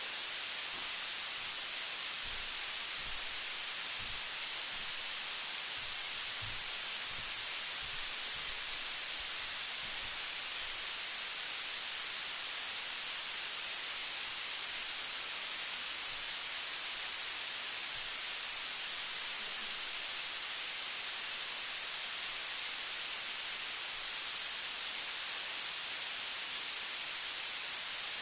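Steady white-noise hiss, even and unbroken and strongest in the high range. A few faint low thumps come through in the first ten seconds.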